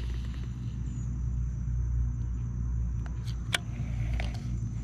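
Steady low rumble on the microphone, with a few short sharp clicks from handling a baitcasting reel between about three and four and a half seconds in.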